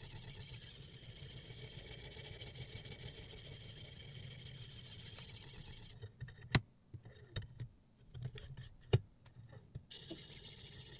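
Steady hiss of a sharpening stone on a guided rod being stroked along a steel kitchen knife's edge. It breaks off for a few seconds of sharp metallic clicks as the knife is turned over in the sharpener's clamps, then the hiss resumes.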